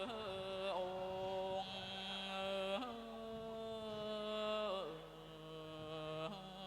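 Thai classical music: a slow melody of long held notes that slide down in pitch between phrases, over a steady lower tone.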